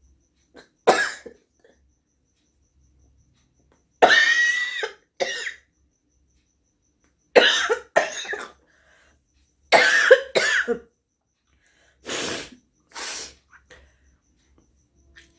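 A woman coughing in a run of short fits, one or two coughs at a time, with gaps of a second or two between them; the last two are breathier.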